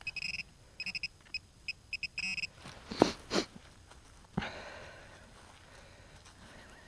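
XP MI-4 metal-detecting pinpointer beeping in short, irregular bursts as it is probed in a dug hole, signalling a metal target close by, with a quick run of beeps just before it stops. Then two sharp knocks and a sudden scraping rustle as soil is handled.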